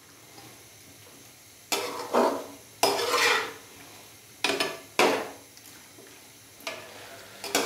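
Metal spatula scraping and stirring potato chunks through thick masala in an aluminium kadai while they fry. The first second and a half is fairly quiet, then come about six separate scrapes against the pan, spaced irregularly.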